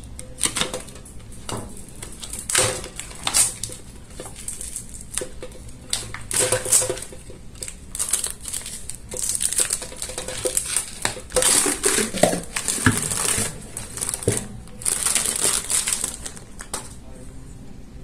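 Plastic wrapping being cut and peeled off a stainless-steel toilet brush holder: irregular crinkling and rustling, with light metallic clicks and clinks as the metal canister and lid are handled.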